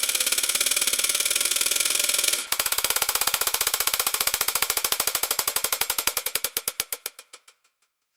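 Grain silo filling, as a sound effect: a fast, even metallic rattle of grain against the bin. It stops sharply about two and a half seconds in. A second rattle starts at once, its strokes slowing and fading away to nothing near the end.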